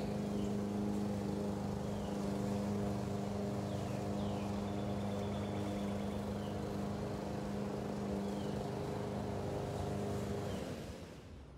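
Small petrol engines of lawn mowers and string trimmers running steadily at an even pitch, then dying away and stopping about ten and a half seconds in.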